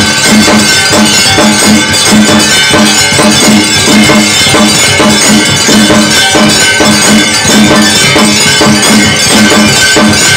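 Several hanging brass temple bells rung by hand, clanging in quick, overlapping strikes several times a second, loud, with their ringing tones sustained underneath.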